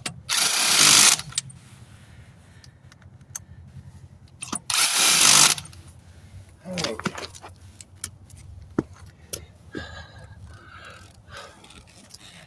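Impact wrench running lug nuts onto a wheel in two short bursts, one near the start and one about five seconds in, followed by scattered metallic clicks and knocks.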